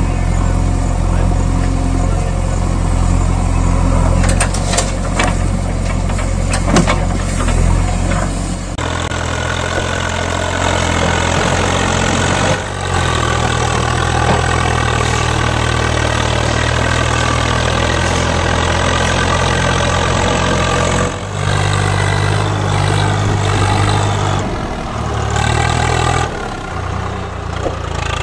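Recorded tractor engine sound laid over the footage, running steadily. Its pitch and character change abruptly about 9, 13, 21 and 26 seconds in, where separate engine clips are spliced together.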